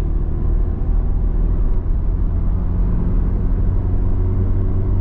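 MINI Cooper's four-cylinder engine and road rumble heard inside the cabin, the car driving steadily in fourth gear of its automatic transmission. The engine note holds even, with no flare in revs: the gear is engaging firmly after the shift-linkage adjustment.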